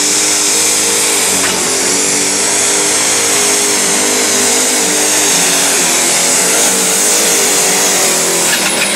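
Massey Ferguson 1150 pulling tractor's engine running flat out at high revs under full load as it drags a weight-transfer sled, its pitch wavering slightly, with a steady high whine above it.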